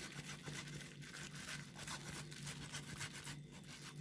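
Faint, quick, irregular rustling and crackling as grated cheese is sprinkled by hand over a dish of moussaka, over a low steady hum.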